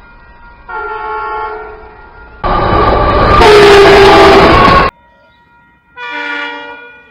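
Three separate train horn blasts, each a chord of several steady tones, cut off abruptly one after another. The middle blast is the longest and loudest, sounding over a heavy rush of train noise.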